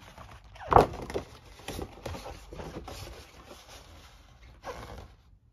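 Folded paper gaming map rustling and crackling as it is handled and flattened by hand, with a loud crackle about a second in, then thinning out and stopping near the end.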